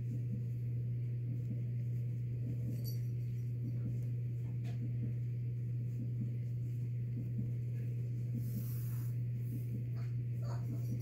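A steady low hum, with a few faint ticks and scratches over it.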